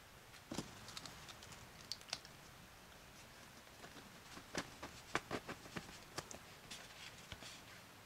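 Soft clicks and taps of a plastic bread-stamping mold and its small cutters, pressed by fingertips into a slice of bread and then lifted off. The clicks come in a few scattered groups, busiest around the middle.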